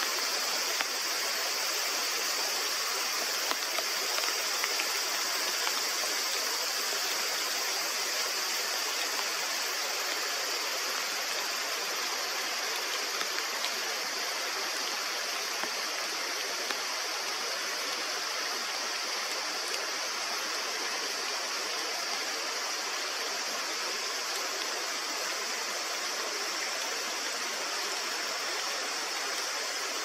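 Sudden summer rain shower falling steadily: an even hiss of rain, with a few faint ticks of drops.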